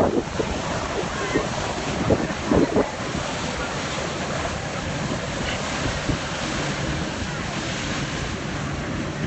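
Wind buffeting the microphone over the noise of river water, with a few short knocks in the first three seconds. A steady low jet ski engine hum comes in about two-thirds of the way through.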